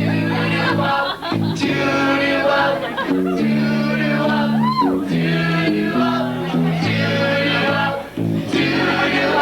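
A band playing, with guitar chords over a bass line that changes every second or so, and singing voices, before the verse's lyrics come in.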